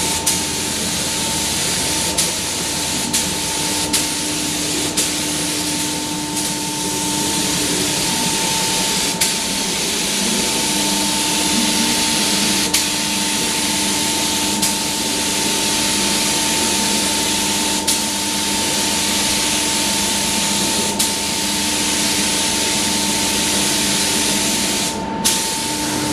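Gravity-feed air spray gun hissing steadily as it sprays the first coat of primer onto car body panels. Underneath runs a steady hum, with short clicks every second or few seconds.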